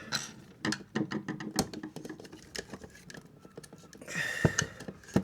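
Small scattered clicks and scrapes of a screwdriver tightening terminal screws on the wires of a wall socket, with a short scrape and a louder knock about four and a half seconds in.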